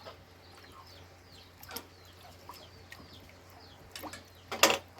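Faint bird chirping in the background, short falling chirps, with a few sharp clicks and one louder knock near the end.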